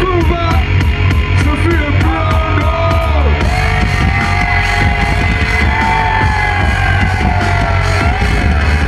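Live band music over a PA: heavy, steady bass and a regular beat, with wavering, gliding melodic lines from a voice or synth lead over the top.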